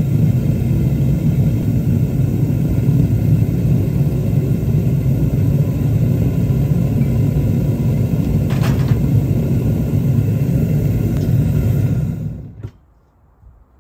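Gas burner of a home-made foundry furnace running with a steady low roar, then dying away about twelve seconds in as the gas is shut off, followed by a single click.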